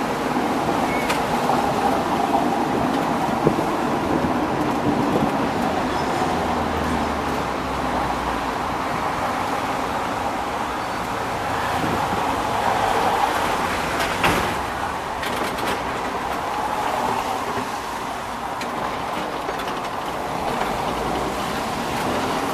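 Restored early-1900s electric museum tram running along street rails: a steady rumble and rattle of the car and its wheels on the track, with the electric traction motors running under it. One sharp click about two-thirds of the way through.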